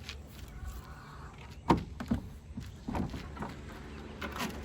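A few irregular knocks and thumps. The sharpest and loudest comes a little under two seconds in, with smaller ones after it and another near the end.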